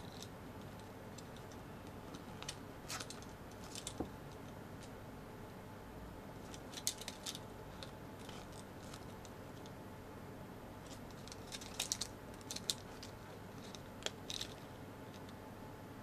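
Faint handling of a soft polyurethane squishy toy over a steady hiss: a few scattered clusters of small clicks and crinkles as hands squeeze and turn it.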